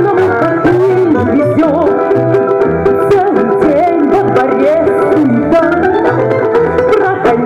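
A woman singing a Russian song with vibrato, accompanied live by a folk ensemble of plucked domras, a bayan button accordion and a bass balalaika.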